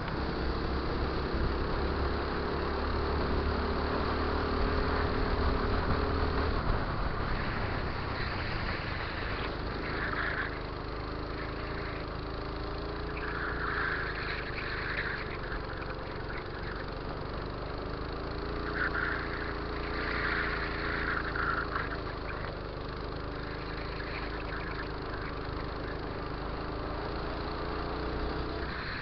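Go-kart engine running under load as the kart laps the track. The engine note holds steady for the first few seconds, then drops and rises and falls through the corners, with a few brief higher-pitched bursts in the middle.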